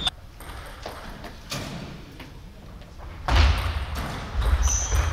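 Table tennis rally on a wooden gym floor: players' feet land hard with heavy thuds a little past halfway and again near the end, which are the loudest sounds. Sneakers squeak briefly near the end, and there are lighter clicks of the ball off bats and table.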